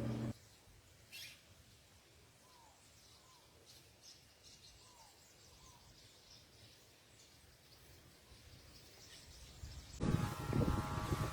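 Wild birds calling faintly at a garden feeder: four short, low chirps that slur downward, about two seconds in and again near five seconds, with a few faint higher tweets over quiet background. About ten seconds in, a louder humming noise with several steady tones cuts in suddenly.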